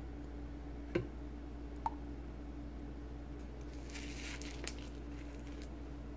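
Small kitchen sounds from mixing a soy-sauce sauce in a ceramic bowl with a wooden spoon: a sharp click about a second in, a lighter one soon after, and a brief wet swish of liquid about four seconds in. A steady low hum runs underneath.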